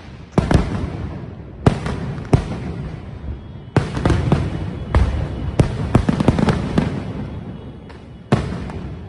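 Fireworks going off in a string of sharp bangs, each trailing off. A few come singly over the first seconds, a quick run of several follows from about four to seven seconds in, and one more comes near the end.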